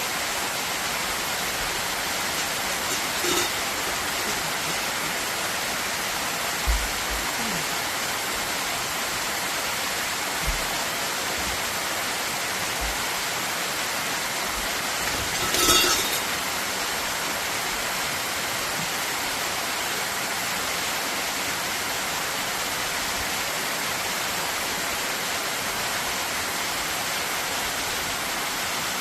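Steady rushing of a waterfall, the Seijaku waterfall in the gorge at the Myōkichijō dragon cave. A brief sharp sound cuts through about three seconds in, and a louder one about halfway through, with a few faint low bumps.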